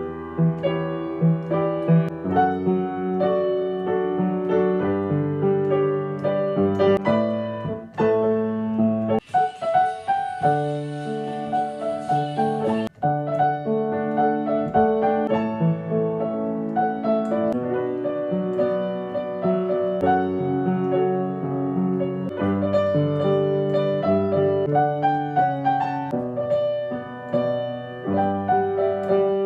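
Piano played by ear: an improvised arrangement of a pop melody over steady chords. A soft hiss sits under the notes for a few seconds, about nine seconds in.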